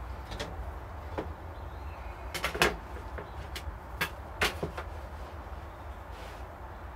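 Workshop tools and a metal template being picked up and set down on a wooden workbench: a run of sharp knocks and clicks, the two loudest about two and a half and four and a half seconds in, over a steady low hum.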